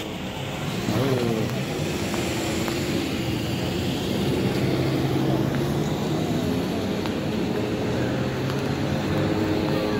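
Steady noise of a car driving, with a low hum under it. A short warbling sound comes about a second in.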